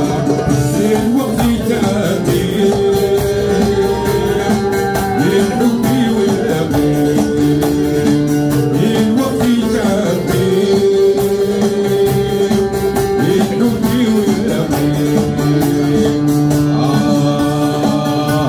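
Live amplified music: a fretted bowl-backed lute played over a steady drum beat.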